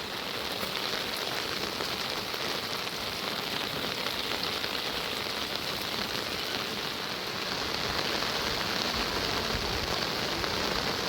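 Heavy rain falling steadily on surfaces, a dense even hiss that grows slightly louder about eight seconds in.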